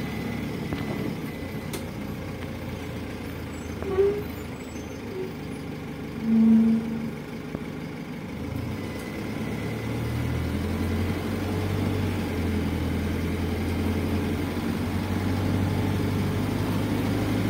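PAZ 320414-05 bus heard from inside the cabin while driving: a steady engine hum with road noise, growing louder from about nine seconds in. A short, loud low tone sounds about six and a half seconds in, and a fainter brief one about four seconds in.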